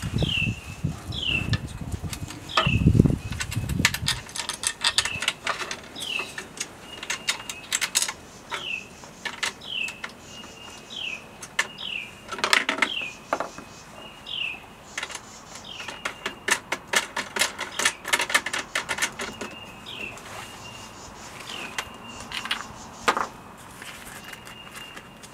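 Small metal parts clicking and clinking as screws and bolts are handled and fitted during assembly of an aluminum router table, with a few low thumps in the first few seconds. A bird gives a short falling chirp over and over in the background.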